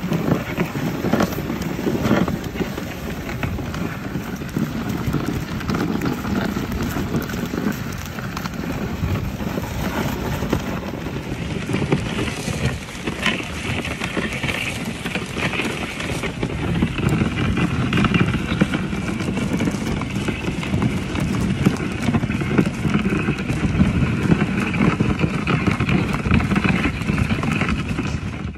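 Reindeer-drawn sleigh moving over snow: a steady, loud noise of the sleigh ride, changing in tone about eleven seconds in.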